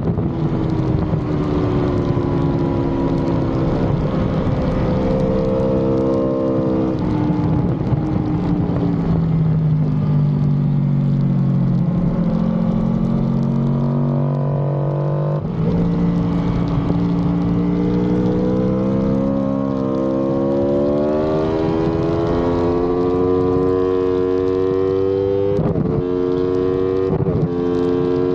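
2018 Aprilia RSV4's V4 engine running at full track pace, over the rush of wind. The note falls as the bike brakes and downshifts for a slow corner, jumps up about halfway through, then climbs steadily under hard acceleration, with quick upshifts near the end.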